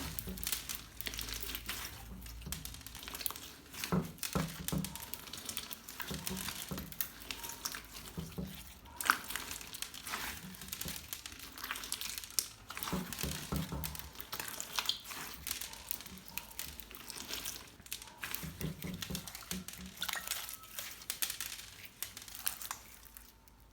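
Slime being kneaded and squeezed by hand, giving a continuous irregular run of sticky crackles, clicks and squishes.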